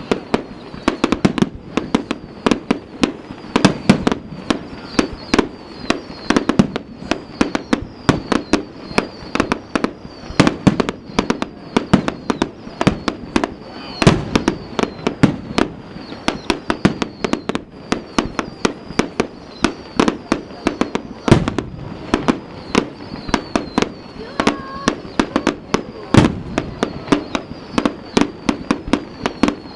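Fireworks display: a dense, continuous barrage of booms and sharp bangs, several a second, with no letup.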